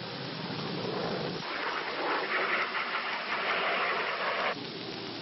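Steady rushing hiss on an old film soundtrack. About a second and a half in it turns louder and brighter, then cuts off suddenly near the end.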